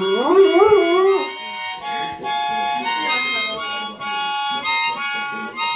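Harmonica playing a tune in held chords with short breaks between them. In the first second and a half a Siberian husky howls along, its voice rising and wavering in pitch.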